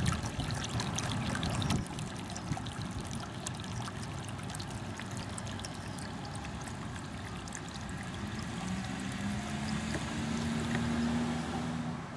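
Water trickling steadily, with a low steady hum joining in the last few seconds.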